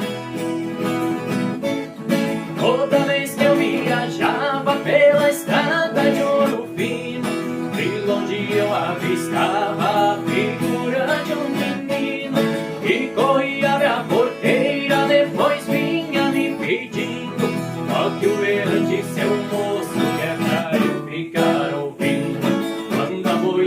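Viola caipira and acoustic guitar playing a sertanejo tune: plucked melody lines over a steady guitar accompaniment.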